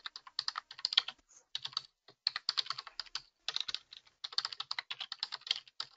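Computer keyboard being typed on: quick runs of key clicks, broken by short pauses about two seconds in and again a little after three seconds.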